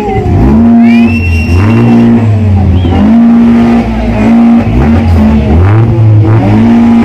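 Tuned Honda Civic's engine revved hard and held high again and again, about five times, with short drops between, loud.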